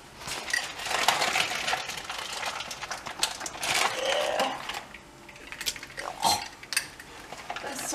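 Rustling and handling of a plastic food container, with scattered sharp clicks and knocks.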